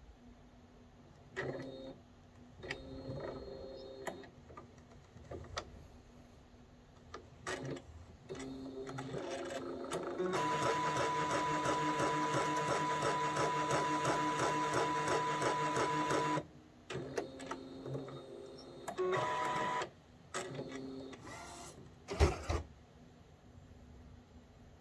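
Epson Artisan 1430 inkjet printer running a print-head cleaning cycle, with cleaning-solution cartridges fitted: its motors run in short whirring bursts with clicks, then in one steady whining run with rapid ticking of about six seconds in the middle. A sharp click comes near the end.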